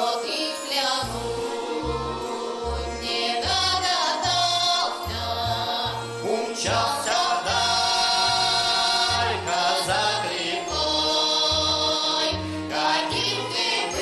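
A Russian folk song: a woman sings with long held notes over a bayan (button accordion) accompaniment. Steady alternating bass notes fall about twice a second.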